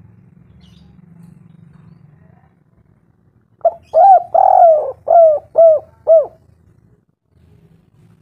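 A bird call: a loud run of about six short notes in quick succession, each rising and falling in pitch, starting about three and a half seconds in.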